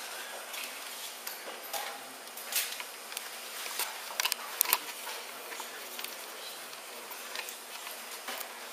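Camera handling noise: a few sharp clicks and knocks as the camera is moved, the loudest a double knock near the middle, over a steady hiss of room tone.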